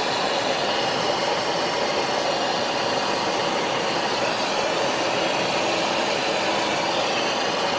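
Steady rushing cockpit noise of a Cessna Citation XLS business jet in flight on approach: airflow and engine noise with no change in pitch.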